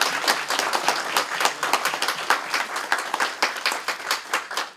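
Applause from a small group of people, many quick overlapping claps that die away near the end.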